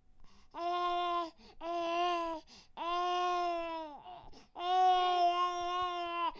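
Infant crying: four held wails, each about a second long with short catches of breath between them, the last one the longest.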